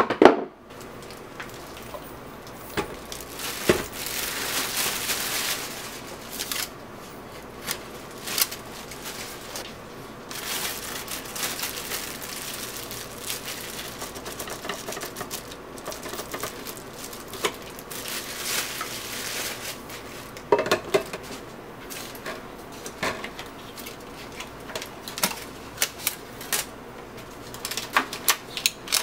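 Plastic wrapping crinkling and rustling while the plastic parts of a Hamilton Beach Big Mouth juice extractor are unpacked and handled, with irregular clicks and light knocks as pieces are set down and fitted together.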